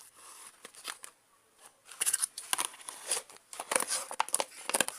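Plastic slime container being handled and its lid pressed down, a quick run of sharp plastic clicks and crackles starting about two seconds in; the lid is not snapping shut properly.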